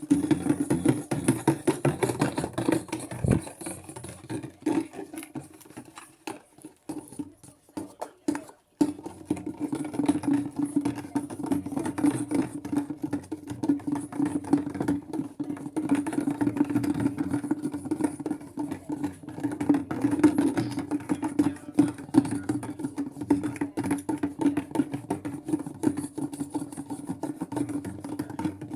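Maytag washing machine running its delicate cycle, the motor and drum churning the wet load with a steady hum. The churning weakens and breaks up from about six seconds in, then starts again strongly about three seconds later.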